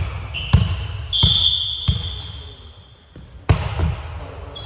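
Volleyball rally on an indoor hardwood court: the ball is struck with sharp slaps three times, the loudest about three and a half seconds in, and sneakers squeak high on the floor in between.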